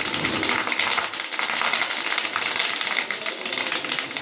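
Soya chunks and freshly added curry leaves deep-frying in hot oil in a kadai, sizzling steadily with fine crackling throughout. The chunks are already fried through.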